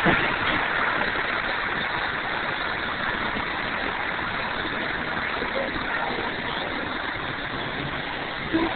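Steady city street traffic and engine noise, an even rushing hiss with no distinct events apart from a short bump at the start and another near the end.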